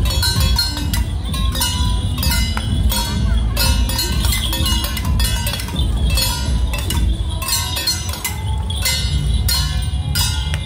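Metal percussion of a temple procession troupe: bell-like clangs ringing out in a steady rhythm, about two to three a second, over a low rumble.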